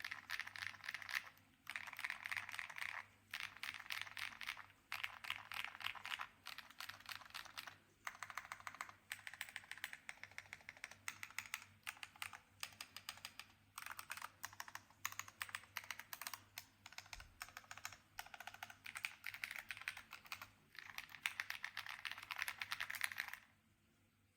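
Fast typing on an Ajazz AK980 mechanical keyboard with lubed Linear Gift V2 switches, an FR4 plate and Cherry-profile keycaps. The keystrokes come in quick bursts with short pauses every second or two, and stop just before the end.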